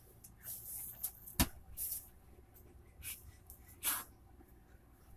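Unpacking and handling of cardboard and packaging: short bursts of rustling and scraping, with a sharp knock about a second and a half in and another near four seconds.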